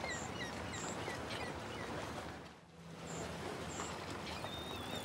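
Outdoor ambience: steady background noise with four short, high bird chirps spread through it; the noise dips briefly a little past halfway.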